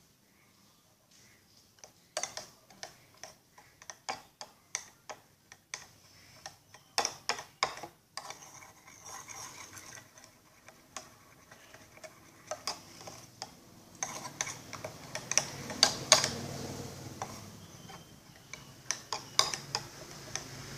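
Slime mixture of glue, water and saline solution being stirred in a container, the stirring utensil clicking against the sides about twice a second. From about eight seconds in, a wetter, noisier stirring sound joins the clicks and gets louder in the second half.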